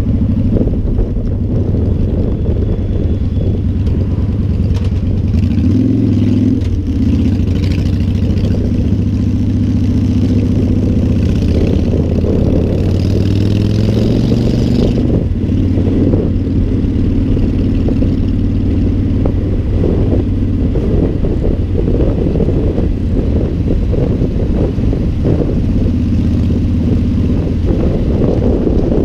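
Motorcycle engine running at road speed, its note shifting up and down a little with the throttle, with steady wind noise over the microphone.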